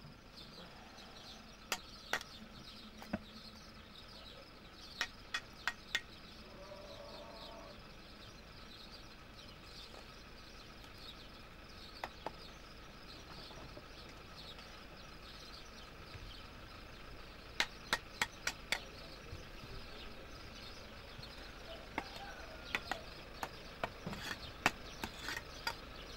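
Sharp taps of a mason's trowel knocking red bricks down into wet mud mortar, in short clusters of two to five taps with pauses between, the busiest run near the end.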